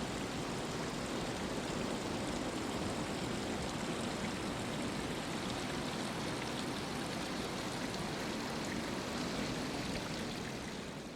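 Water trickling and dripping out of the ground, a steady rushing patter like a small stream, fading down near the end.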